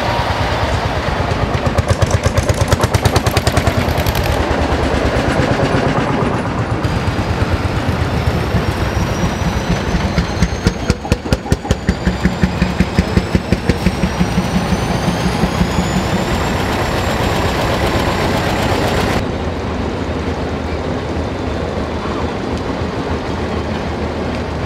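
Old tractor and lorry engines running as the vehicles drive past one after another, with a steady, rhythmic thumping beat in two stretches and a faint rising whine in the middle.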